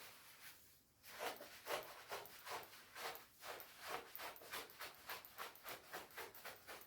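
Shiny nylon shell of a down jacket being rubbed and rustled in quick repeated strokes, about three or four a second, starting about a second in.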